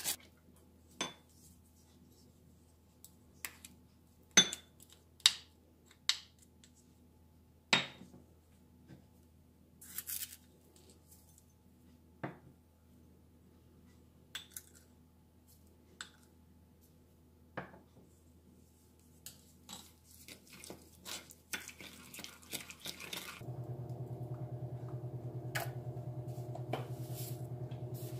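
A plastic spoon tapping, clinking and scraping against a small glass bowl while a thick chili-paste sauce is stirred and spooned, in scattered separate taps. About four seconds before the end a steady low hum comes in and holds.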